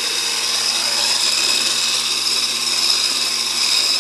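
Electric mixer running steadily as its beaters whip cake batter in a bowl, with a constant high whine.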